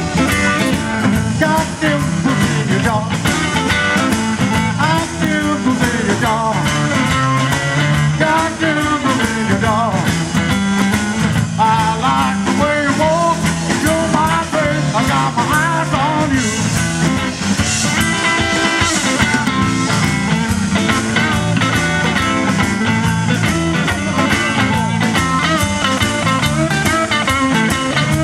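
Live blues-rock band playing: electric guitar over a drum kit, with a man singing at times. Melodic lines on top bend up and down in pitch.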